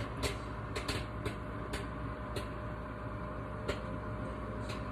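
Microwave popcorn kernels popping in the bag, about seven or eight sharp pops at uneven gaps, over the steady hum of the running microwave oven. The popping is slowing down as the bag nears done.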